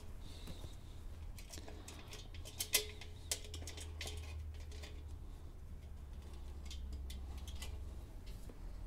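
Scattered light clicks and taps of small metal hardware (bolts, nuts, washers) being handled while a folding workbench is put together, over a steady low hum.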